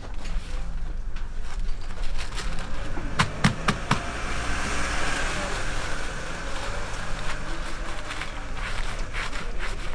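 Rubber-gloved hands rustling and wiping on paper towels, with a few sharp clicks about three seconds in, over a steady low hum.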